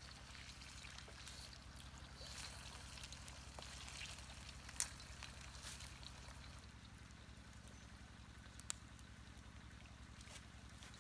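Faint sizzling of two fish frying in oil in a wok over a wood fire, with light crackles throughout. Two sharp clicks stand out, about five and nine seconds in.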